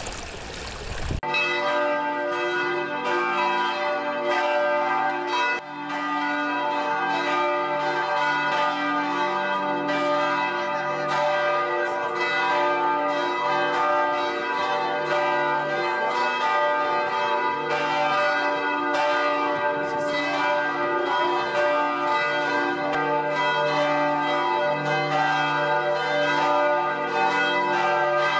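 Church bells pealing, many strikes overlapping into a continuous ringing. They come in suddenly about a second in, cutting off a steady hiss.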